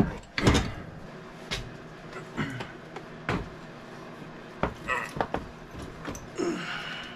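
Irregular metal clunks and knocks, about eight spread over several seconds, as a Yamaha ATV engine is shifted by hand to seat it in the quad's frame.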